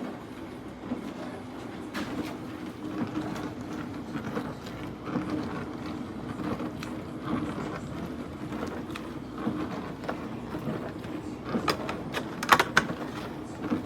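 AIRMSEN mini countertop dishwasher running: a steady hum with a rushing noise over it, and a few sharp clicks and knocks near the end.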